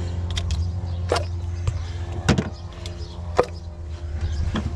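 Sharp plastic clicks and knocks, four of them about a second apart, as ignition coil packs are popped out of a Mini Cooper S engine, over a steady low hum.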